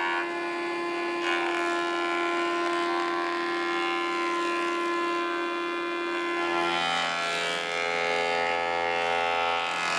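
Woodworking jointer (surface planer) running with a steady machine whine while a board is fed by hand across it. About six and a half seconds in, its tone shifts lower and grows rougher.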